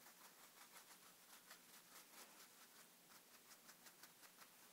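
Faint, quick dabbing of a crumpled paper towel on a painted paper craft tag: soft, light taps at about five a second, blotting up wet watercolour-thin acrylic paint.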